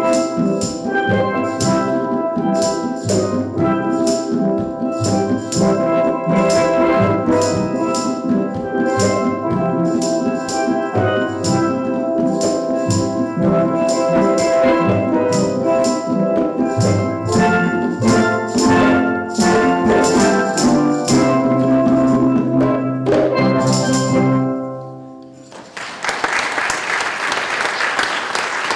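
Steel drum band playing an upbeat tune over a steady percussion beat, closing on a held chord about 24 seconds in. Audience applause breaks out near the end.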